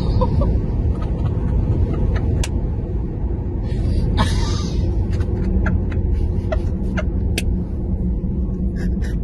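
Steady low road and wind rumble inside the cabin of a fast-moving car, with scattered light clicks and a brief breathy burst of laughter about four seconds in.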